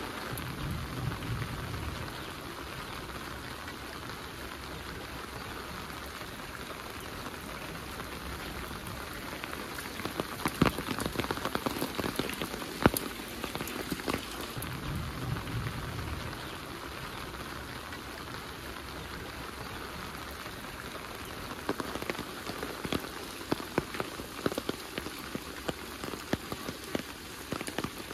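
Heavy rain falling steadily on surfaces. Scattered louder, sharp drops land close by around the middle and again through the last several seconds.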